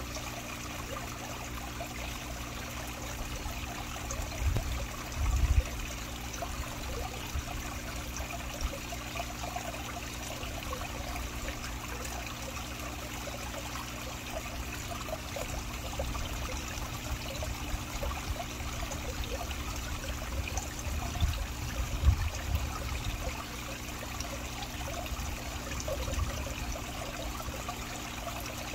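Steady trickle of running water in a garden pond, such as a small waterfall or filter return. Twice a brief low rumbling bump rises over it.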